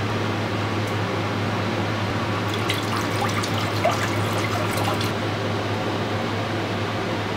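Water poured from a plastic bottle into the seasoning liquid in a pressure cooker, splashing for a few seconds in the middle, over a steady low hum.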